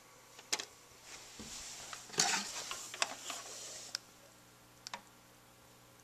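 Handling noises from a record changer being worked by hand, with no music playing: a sharp click, then about three seconds of rubbing and knocks with two louder clicks, and a quick pair of clicks near the end.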